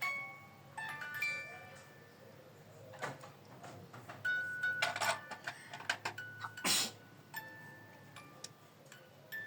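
A tinkling melody of short, chime-like notes that ring and fade, broken by a few brief clattering, rustling noises; the loudest comes about two-thirds of the way through.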